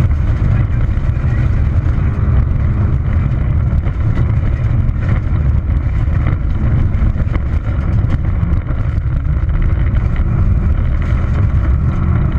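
Peugeot 206 XS rally car's engine running at speed on a gravel stage, heard from inside the cabin, with a constant rumble of tyres on gravel and frequent clicks of stones striking the car.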